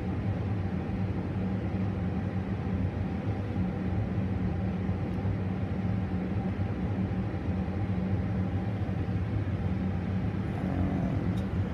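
Biological safety cabinet's blower fan running, a steady low hum.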